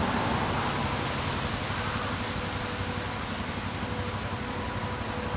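Steady hiss of background noise, with a faint steady tone running under it.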